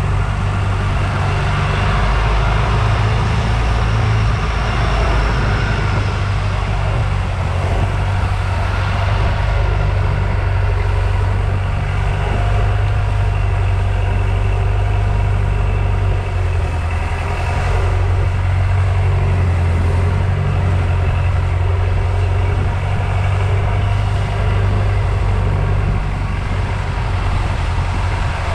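Tourist boat's engine running steadily under way, a steady low hum, with the rushing wash of the churning wake behind the stern.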